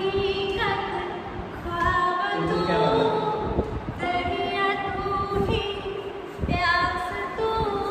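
A woman singing solo without accompaniment, holding long notes that slide from one pitch to the next.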